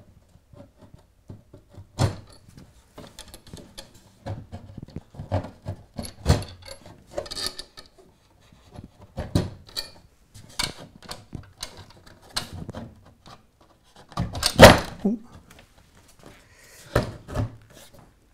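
Handling knocks, clicks and scrapes of a plywood board and M8 threaded steel bars as the bars are threaded up through holes in the board and the board is settled onto them. The knocks come irregularly, with the loudest a little after halfway.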